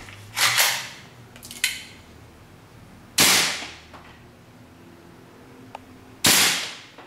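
Green-gas gas blowback airsoft pistol firing single shots: three loud, sharp pops about three seconds apart, each fading quickly, with a smaller click between.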